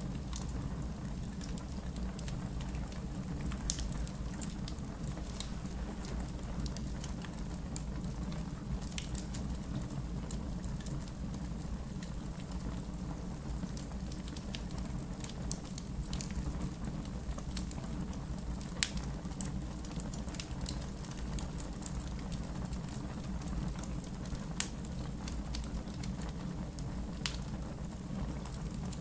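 Wood fire burning in a fireplace: a steady low rumble of flames with occasional sharp crackles and pops from the burning wood.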